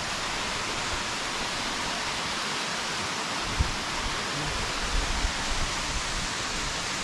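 Waterfall pouring and rushing steadily, a constant even roar of falling water with a few faint low bumps about halfway through and near the end.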